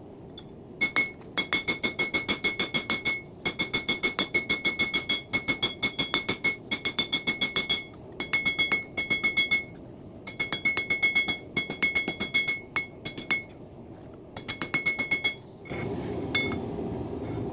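Hand hammer striking hot coil-spring steel on an anvil in fast runs of blows, about four or five a second, each with a bright metallic ring from the anvil. The runs are broken by short pauses. This is drawing out the knife's handle by hand.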